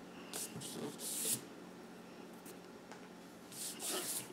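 A hand rubbing across a folded sheet of printer paper to crease the fold: two brief swishes, about a second in and again near the end, with a few faint ticks of paper.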